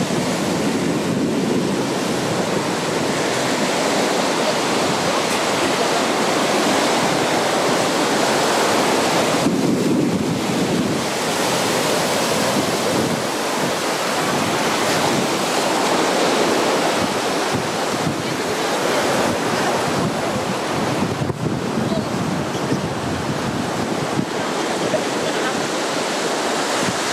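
Sea surf breaking and washing up a sandy beach, a steady rushing noise, with wind buffeting the microphone.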